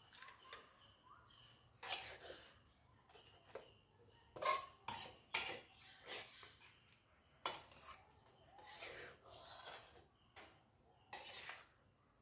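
A wooden spatula scraping and knocking against an aluminium pan as cooked food is scooped out into a plastic bowl. The strokes are short and irregular, coming a second or two apart.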